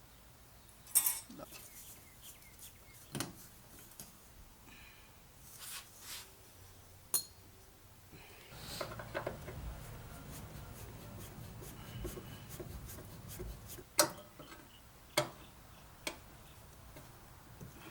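Sharp metallic clicks and clinks of hand tools and parts being picked up and set down, with a stretch of shuffling and rustling in the middle.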